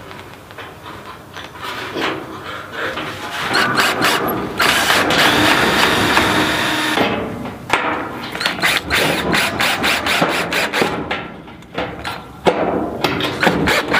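Cordless drill driving screws through a galvanized metal nesting box into wood framing: the motor runs steadily for a couple of seconds in the middle, followed by a rapid string of sharp clicks, with more clicks near the end.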